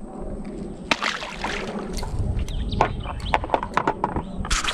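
Water splashing and sloshing against a small fishing boat, with a string of sharp knocks and clatters that get denser and louder near the end.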